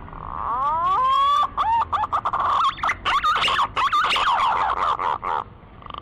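Green pigeon (punai) song played as a lure call: a few rising whistled glides, then a long run of quick, wavering fluty whistles, with a short buzzy note at the very end.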